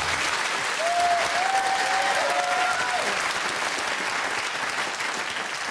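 Studio audience applauding, with one voice calling out over the clapping for about two seconds, starting about a second in; the applause dies away near the end.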